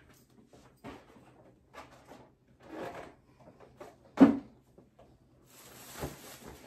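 Groceries being unpacked by hand: plastic shopping bags and packages rustling and being handled, with one sharp thump a little over four seconds in as an item is set down.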